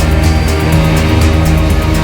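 Background music with a fast, steady beat over held low notes.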